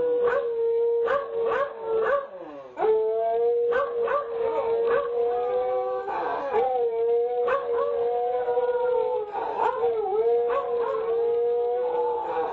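Two beagles howling together, one holding a long, steady note while the other's higher howl wavers above it. The howling breaks off briefly about two seconds in and picks up again.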